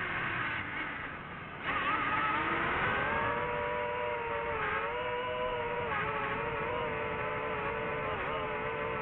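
DJI FPV drone's motors and propellers whining, quieter and lower while throttled back. About a second and a half in the throttle comes up sharply: the whine jumps louder, rises in pitch, then holds a steady high pitch.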